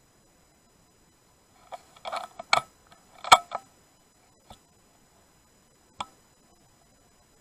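A quick cluster of sharp clicks and knocks close to the microphone about two seconds in, then a faint click and a single sharp click about six seconds in.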